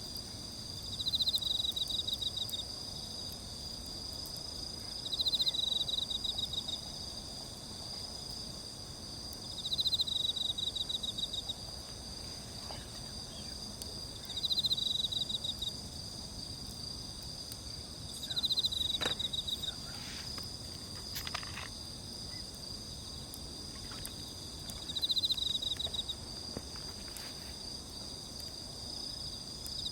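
Insects chirping: a steady high-pitched chorus, with a louder pulsed trill of about a second and a half repeating every four to five seconds. A few faint snaps come about two thirds of the way in.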